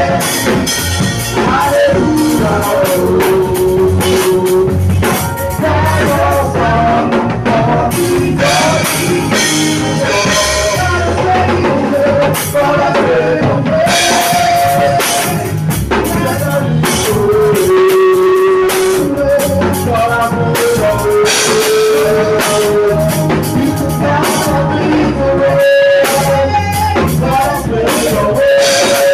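Band music playing: drum kit and guitar under singing with long held notes, loud and steady throughout.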